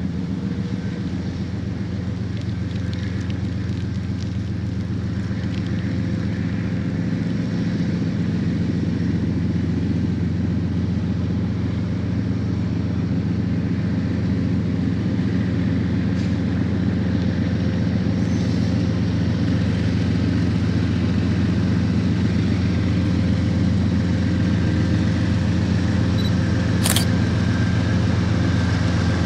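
Aurizon diesel-electric locomotives 2837 and 4049 working under load as they haul a long freight train away, a steady low engine rumble that slowly grows louder. A brief click sounds near the end.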